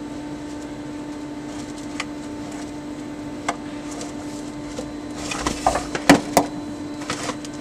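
Steel parts clinking and knocking together as a driveshaft is fitted onto a vac truck's auger shaft at its bearing: a couple of light clicks, then a quick run of sharp metal knocks about five to seven seconds in, the loudest two close together, over a steady hum.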